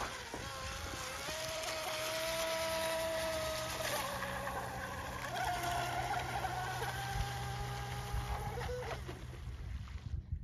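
Electric radio-controlled sponson boat running fast across the water: its motor whines, the pitch holding, then dropping and rising again several times as the throttle changes, over the hiss of spray.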